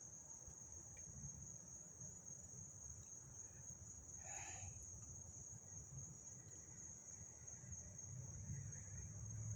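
Faint steady insect chorus at night, a continuous high-pitched trill typical of crickets, over a faint low rumble. A brief soft rustle or breath sounds about four and a half seconds in.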